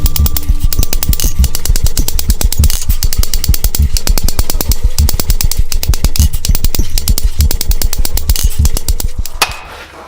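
Power hammer striking steel in a fast, even run of blows, more than ten a second, over a steady machine hum. It dies away near the end.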